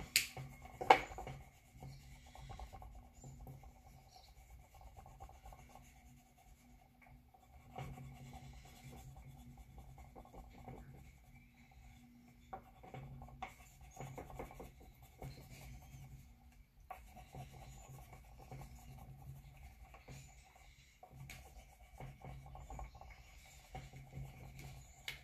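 Wax crayon rubbing back and forth on paper in stretches of quick strokes as a drawing is coloured in, with one sharp tap about a second in.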